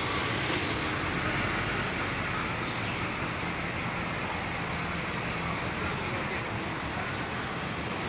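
Steady road traffic noise, an even wash with no single vehicle standing out.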